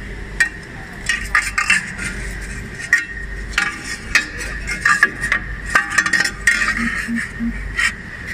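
Aluminium profiles being handled and set into a double-head aluminium cutting saw: irregular sharp metallic clinks and knocks, some with a short ring.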